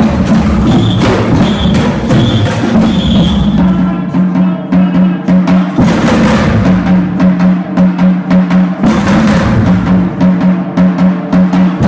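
Samba-style percussion band of children playing: large drums struck with mallets, shakers and agogo bells in a driving rhythm. About four seconds in, the playing thins to a steady pulsing beat led by the ringing low drums.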